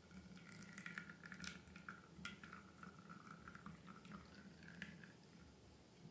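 Faint wet squishing and small clicks of slime being handled, with a thin wavering squeak running through it that fades out about five seconds in.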